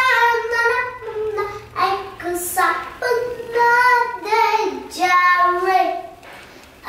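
A young girl singing without accompaniment in a high child's voice, phrases of held and gliding notes, with a short pause near the end.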